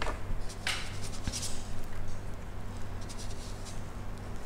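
A watercolour brush swishing and dabbing briefly a few times as it picks up paint from the palette, over a steady low hum.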